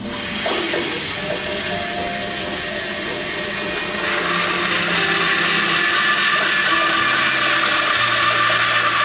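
Woodworking bandsaw fitted with a carbide-tipped blade, resawing a thick board lengthwise: a steady, loud cutting noise.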